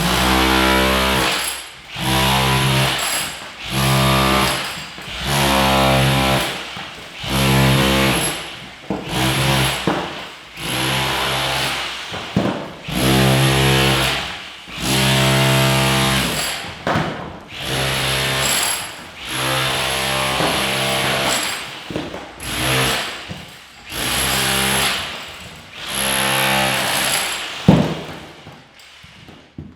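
Electric demolition hammer with a chisel bit hammering in repeated bursts of one to two seconds, broken by short pauses. A single sharp knock comes near the end.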